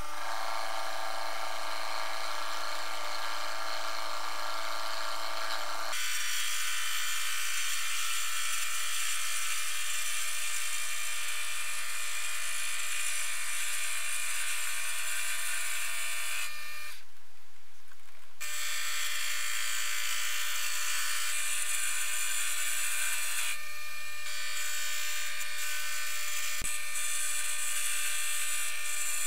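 Optimum D180x300 mini metal lathe running with a steady motor whine while its tool turns a wooden blank held between a drive center and a live center, with a high hiss from the cut. The sound changes abruptly about six seconds in, and the hiss breaks off briefly past halfway.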